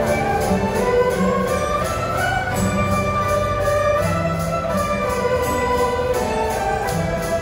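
Orchestra playing live: sustained melodic notes moving over a steady high percussive beat of about three strokes a second.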